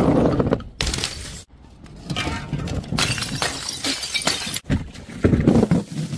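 Glass shattering: several separate breaks in quick succession, each a sharp crash followed by ringing, scattering shards.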